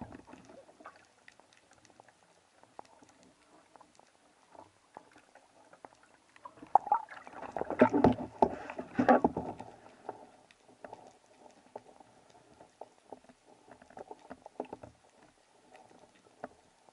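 Underwater sound picked up by a submerged camera: a faint steady crackle of small clicks, with a louder rush of churning water for about three seconds around the middle.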